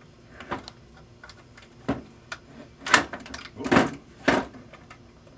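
Metal clicks and clacks of a sling's front clip being hooked onto the eyelet of an H&K 91 rifle, a string of separate knocks with the loudest about three seconds in and two more soon after.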